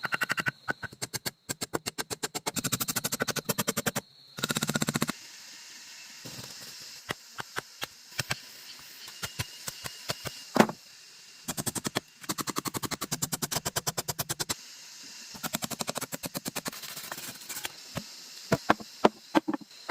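Rapid runs of sharp knocks, several a second, from tools striking wood or bamboo during shelter building. The runs stop and start, and there is one louder single crack near the middle.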